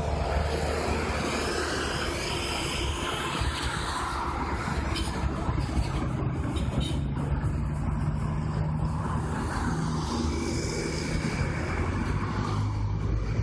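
Street traffic: cars and minibuses driving past with their engines running, a steady hum of passing vehicles.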